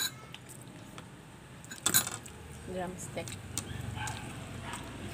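Dishes and tableware clinking during a meal, with a sharp clink about two seconds in, among low talking.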